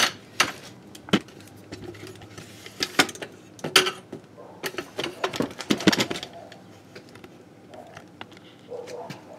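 Handling clatter on a workbench: a series of sharp clicks, knocks and clinks of objects being moved and set down, bunched mostly in the middle, with quieter gaps between.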